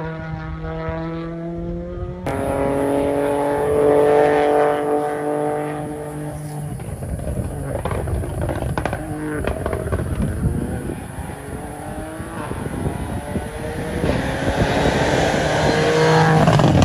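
Rally car engines at high revs on a tarmac stage, the pitch climbing and dropping as the cars accelerate and lift. The sound cuts abruptly to another car about two seconds in. It is loudest near the end as a car comes by close.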